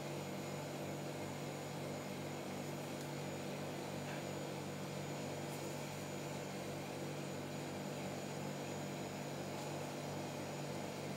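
Steady low electrical hum over an even hiss, with no distinct event: room tone. The glaze being spread with a silicone spatula makes no distinct sound.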